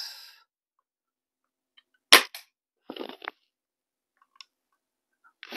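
Daisy 840 multi-pump air rifle firing a single BB: one sharp crack about two seconds in, followed about a second later by a few faint ticks. The rifle is pumped ten times, yet the shot is weak, and the shooter judges it lacks power.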